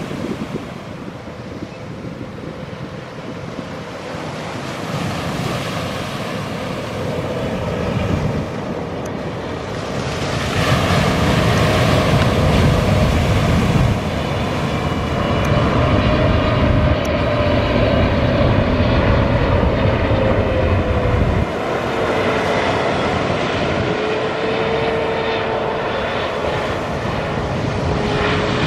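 Boeing 777-300 airliner's twin jet engines on landing approach, gear down, getting louder as it passes close by. A whining tone slowly drops in pitch as it goes past.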